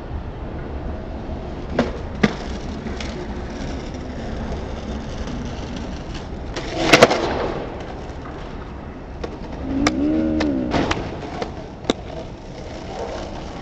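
Skateboard on concrete: wheels rolling, a sharp pop and clack onto a concrete ledge about two seconds in, the board sliding along the ledge, then a loud landing clack about seven seconds in, followed by more rolling and a few lighter clacks. A brief call that rises and falls in pitch is heard about ten seconds in.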